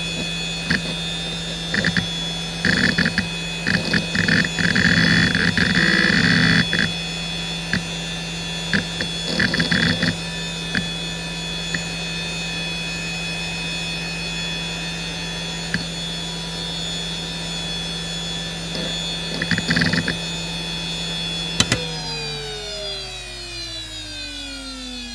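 Hitachi DK32CJ-36MC 10,000 rpm SCSI hard drive spinning with a steady whine, its worn bearings audible, and chattering in bursts of head seeks. A click comes near the end as power is cut, and the whine falls in pitch as the drive spins down.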